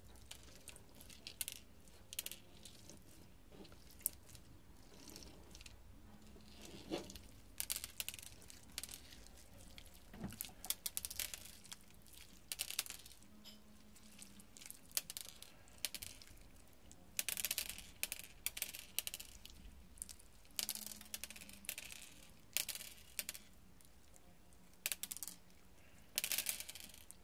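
Hands squeezing and stretching shimmer slime packed with clear plastic gem beads, giving short, irregular bursts of sticky crackling and clicking that come thicker in the second half.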